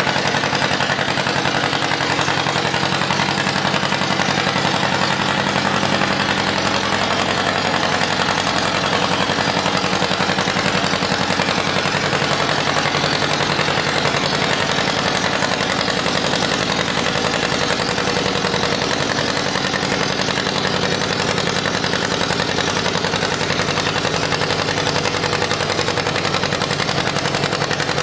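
John Deere two-cylinder tractor engine working under load as it drags a concrete-block weight sled, its exhaust popping in a steady, rapid beat.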